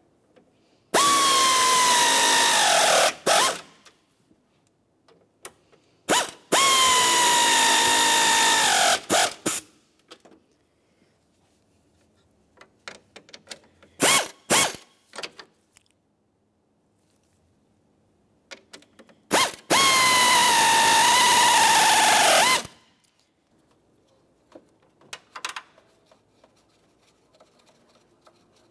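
Hand-held power driver run three times for about three seconds each, driving grille mounting screws home. Its whine drops in pitch near the end of each run as the screw seats. There are a few short clicks between the runs.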